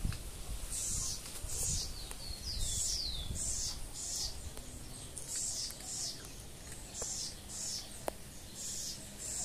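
House wren (ratonera) singing: high notes in pairs, repeated about once a second, with a few falling whistled notes a couple of seconds in.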